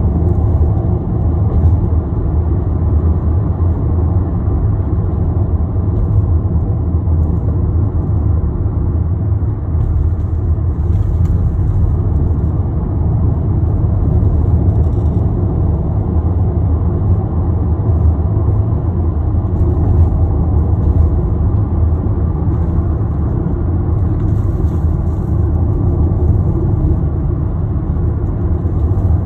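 Car driving at speed, heard from inside the cabin: a steady low rumble of tyre and engine noise.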